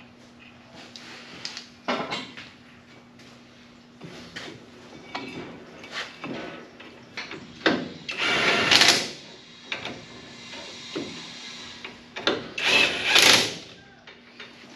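A handheld power tool running in two short bursts of about a second each, one about halfway through and one near the end, with scattered knocks and clinks of parts and tools between them.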